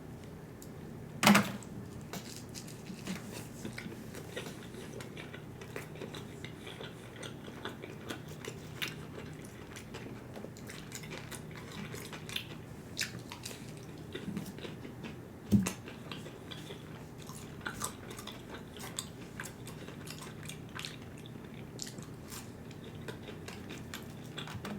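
A person eating close to the microphone: chewing and biting with small clicks and rustles of food and packaging. Two louder sharp knocks, about a second in and again about fifteen seconds in, over a steady low hum.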